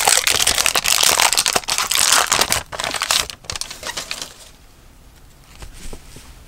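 Trading-card pack wrapper crinkling as it is handled and opened: dense crackling for about three and a half seconds, then dying down to faint handling.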